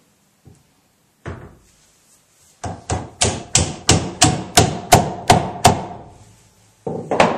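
Hammer blows driving a tapered oak peg into a draw-dowelled leg joint of an oak table: one blow, then a steady run of about ten at roughly three a second, and a few more near the end, each with a short ring.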